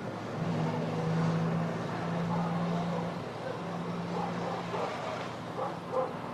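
Street traffic, with a car engine running steadily.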